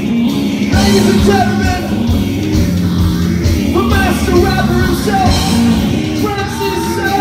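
Loud rock music from a band with a singing voice over it, the melody gliding up and down above a steady, dense backing.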